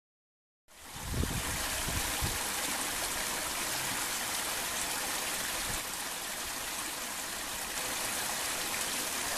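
Water running steadily from a bamboo spout into a shishi-odoshi's bamboo tube and the small pool below, starting suddenly under a second in. A few dull low bumps come in the first couple of seconds.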